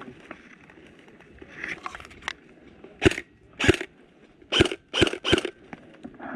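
Footsteps crunching through woodland undergrowth: a few faint crunches, then five loud, sharp ones in quick, uneven succession, the last three close together.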